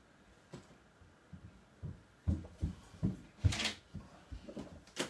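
A series of soft, low thumps and knocks on a tabletop, loudest about three and a half seconds in, where a brief rustle comes with the knock: things being handled and set down on a drawing table.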